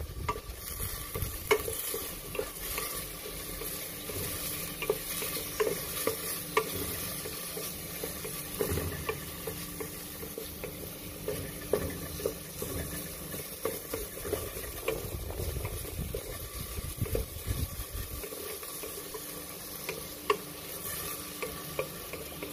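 Garlic and onion sautéing in hot oil, sizzling steadily, while a cooking utensil stirs them with irregular knocks and scrapes against the pan.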